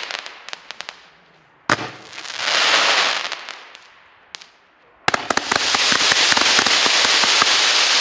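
A multi-shot fireworks cake of 1.25-inch shots firing. About two seconds in there is a sharp bang, then a swelling crackle that fades out. A single crack comes past four seconds. From about five seconds a quick run of shots sets off a dense, loud crackle that keeps going.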